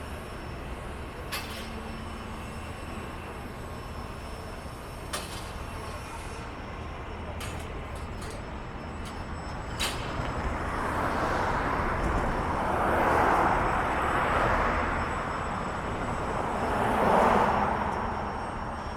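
Downtown street traffic: a steady low rumble with a few sharp knocks in the first half, then vehicles passing, swelling up twice in the second half.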